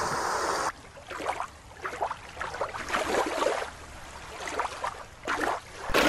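Creek water rushing over rocks, cut off suddenly under a second in. Then fainter, uneven splashing and sloshing of water in a large show pool, swelling with a big splash from a performing orca about four to five seconds in. The loud rushing of the creek returns right at the end.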